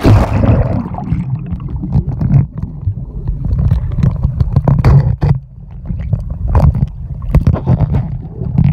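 Water heard through a phone microphone held underwater in a swimming pool: a splash as it goes in, then a muffled low rumble of moving water with scattered clicks and knocks.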